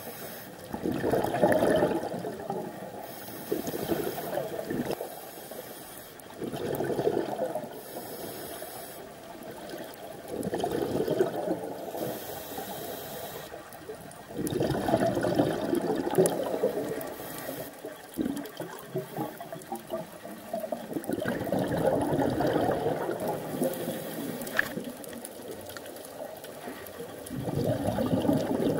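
Heard underwater: scuba divers' exhaled air bubbling out of a regulator in bursts about every three to four seconds, one per breath, with quieter spells between breaths.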